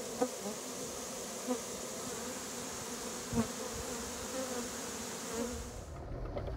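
A swarm of honey bees buzzing steadily, with three soft thumps. Near the end the buzzing gives way to the low rumble inside a moving truck.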